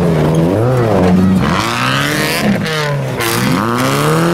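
Several autocross race cars' engines revving hard on a dirt track, their pitch climbing and dropping over and over with throttle and gear changes as the cars chase each other.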